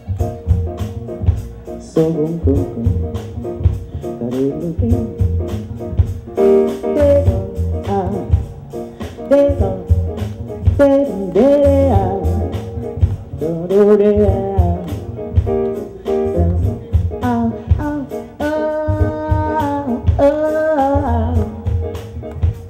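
Live jazz-funk band playing a steady groove on drum kit, upright bass, keyboards, vibraphone and saxophone. A woman sings a bending, held melodic line over it.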